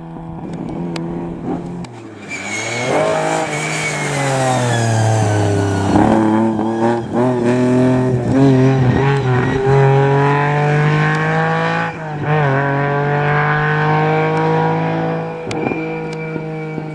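Rally car engine revving hard on a tarmac stage as the car drives past close by. The pitch drops and climbs again through gear changes about two and twelve seconds in.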